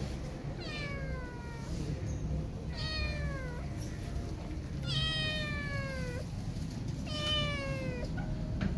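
Calico kitten meowing: four meows about two seconds apart, each falling in pitch.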